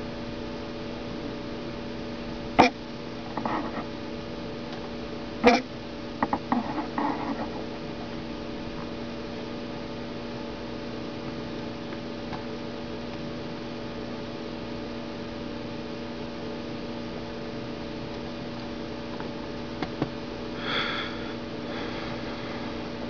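Steady electrical mains hum on the recording, with two sharp clicks a few seconds apart, each followed by brief faint rustling, and a short soft sound near the end.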